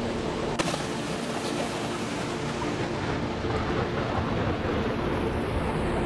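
Steady rush of river water. There is a single sharp click about half a second in.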